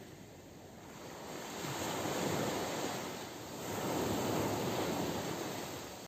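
Sea surf breaking and washing up a sandy beach. It comes in two swells: one rolls in about two seconds in, and a second, longer one follows later.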